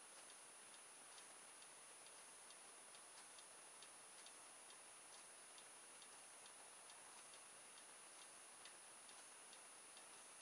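Near silence with faint, quick ticking, a few ticks a second, over a thin steady high-pitched whine.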